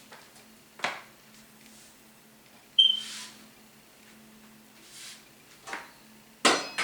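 Kitchen utensils handled around the stove: a light click about a second in, a short ringing metal clink near three seconds, and a louder clatter of pots and utensils near the end, over a faint steady hum.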